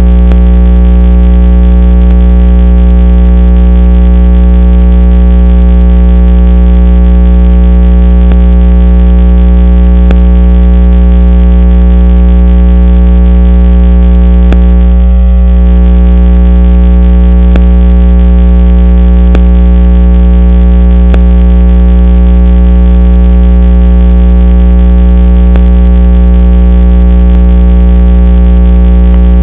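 A loud, steady electronic hum made of several fixed tones, with faint ticks about every two seconds and a brief dip about halfway through.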